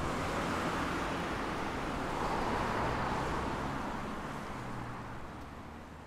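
Steady outdoor hum of distant road traffic, a wash of noise with no bell or distinct vehicle in it, fading out over the last couple of seconds.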